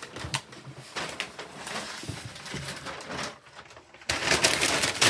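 Cardboard box being handled: dense rustling and scraping with small knocks, growing louder for the last second or so.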